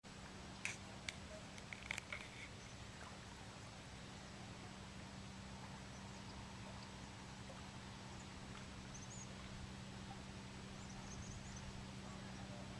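Quiet outdoor ambience over a steady low hum, with a few sharp clicks in the first two seconds and faint, high chirps from small birds a few times later on.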